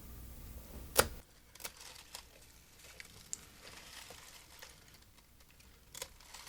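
Scissors snipping dill stems, with one sharp snip about a second in and a few fainter clicks, amid the crinkling rustle of the herb fronds being handled.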